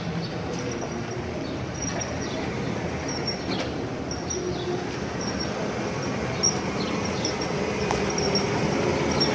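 GMC Safari van towing an enclosed cargo trailer driving slowly past: a steady low engine and rolling rumble with light trailer clatter, getting louder near the end as it comes close.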